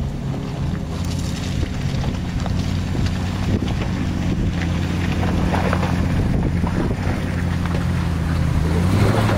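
Lexus LX470's 4.7-litre V8 running at low revs as the SUV crawls through a rocky ditch, growing a little louder as it comes close. Wind buffets the microphone.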